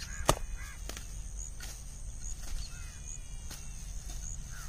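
A short-handled hoe chopping into damp soil while digging for earthworms: one sharp strike about a third of a second in, then several softer ones. A steady high insect drone runs underneath.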